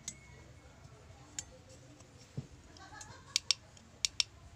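Two pairs of sharp clicks near the end, from fingers tapping and handling the phone that is filming.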